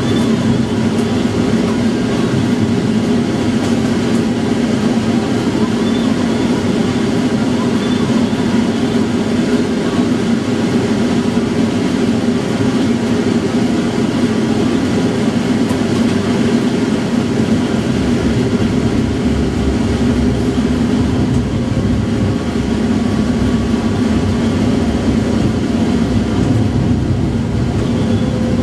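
Tram running along street track, heard from the driver's cab: a steady hum and rumble of motors and wheels on rail. The deep rumble grows stronger about two-thirds of the way through.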